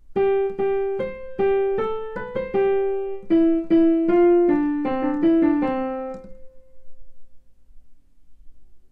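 Digital piano playing a short four-bar melody in 2/4 as a single line of notes, about seventeen notes at a moderate pace, the whole melodic-dictation exercise played through once. The last note is held and dies away a little after six seconds.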